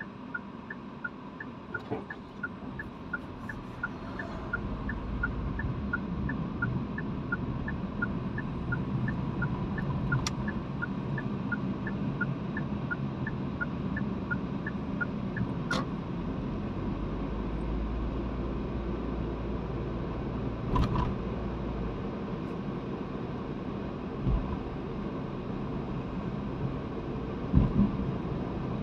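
Inside a car: the turn-signal indicator ticking steadily, about two to three clicks a second, while engine and road noise rise as the car pulls away from a stop. The ticking stops about halfway through, and a few light knocks come near the end.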